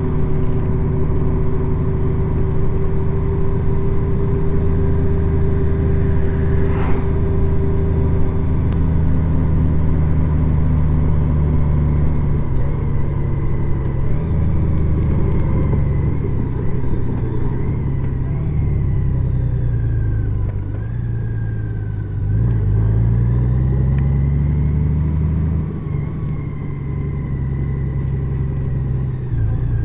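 Honda Gold Wing motorcycle engine running under way, steady at first; about two-thirds of the way through the engine note falls and then climbs again as the bike slows and picks back up.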